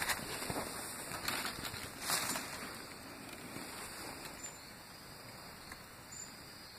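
Rustling of grass and dry leaf litter with handling noise as the phone is moved through undergrowth, with a few soft knocks in the first couple of seconds, then a quieter even hiss.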